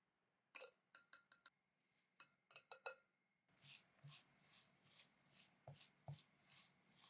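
Faint kitchen prep sounds: a few light, ringing clinks of utensils against a bowl, then, about three and a half seconds in, a steady rhythmic squishing of food being mixed in a bowl at about two strokes a second.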